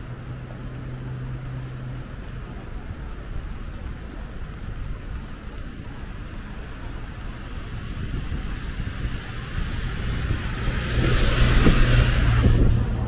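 Road traffic on a wet city street: a steady low engine hum, then a vehicle passes close near the end, its tyre hiss on the wet road swelling to the loudest point and dropping off quickly.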